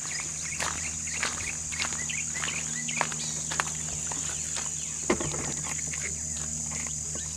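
Insects singing in a steady high chorus, with irregular crunching footsteps on gravel and grass.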